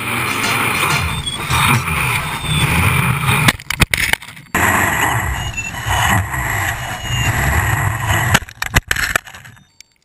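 Quadcopter motors and wind noise heard through the GoPro case, cutting out abruptly twice and then stopping near the end as the failing XT60 battery connector loses contact. Short high beeps from the ESCs sound between the cuts.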